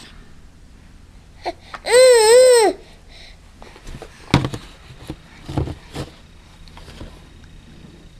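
A baby's high-pitched squeal about two seconds in, under a second long and wavering up and down in pitch, followed by a few sharp knocks and taps.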